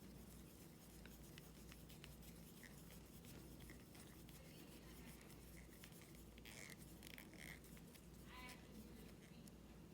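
Near silence, with faint small clicks and scratches of hands handling a small RC shock absorber and its cap screw.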